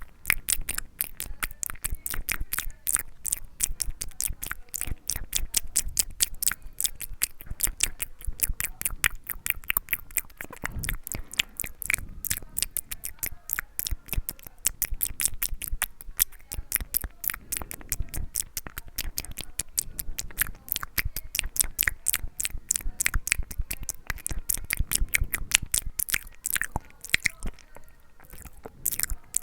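ASMR mouth sounds close to the microphone: a dense run of sharp clicks of the lips and tongue, several a second, easing briefly near the end.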